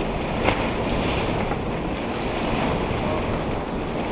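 Wind buffeting the microphone over water rushing along the hull of a sailboat under way, a steady noise with a brief sharp knock about half a second in.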